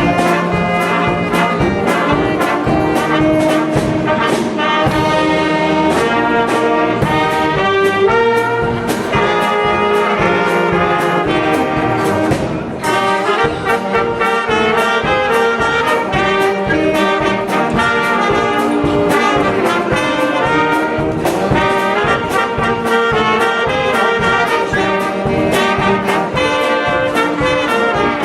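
Brass-led band music with trombones and trumpets over a steady drum beat, played by a light-entertainment orchestra.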